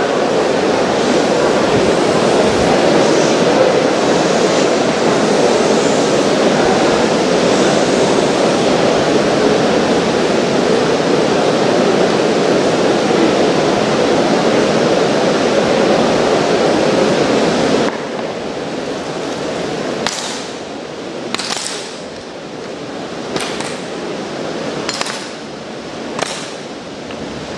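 A loud, even rush of noise that cuts off abruptly about two-thirds of the way in. It is followed by about five sharp, separate clacks a second or two apart: drill rifles being slapped and struck during a silent rifle drill.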